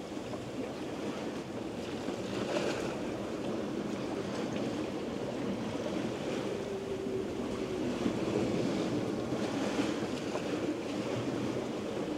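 Sea water rushing and splashing along a sailboat's hull under sail, with wind over the deck and some wind buffeting the microphone; the level swells and eases with the waves.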